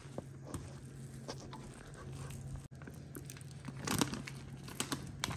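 Hand mixing and squeezing a wet gram-flour mixture in a steel bowl: soft squishing and scattered light clicks and scrapes, busier about four seconds in, over a steady low hum. The sound cuts out for an instant near the middle.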